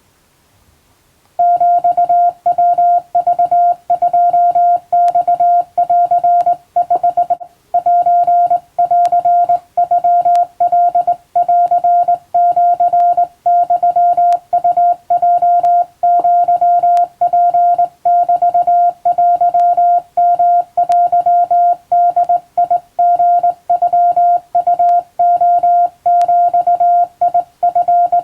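Hand-sent Japanese (wabun) Morse code: a single steady beep keyed on and off in dots and dashes at a practice speed. It starts about a second and a half in, with a brief break about seven seconds in.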